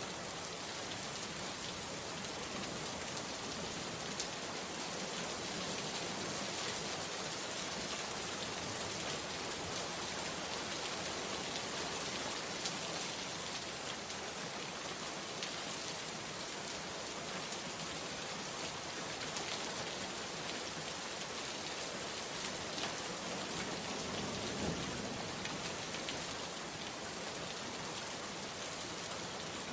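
Steady rainfall: a continuous even hiss of rain, with now and then a single sharper drop hitting close by.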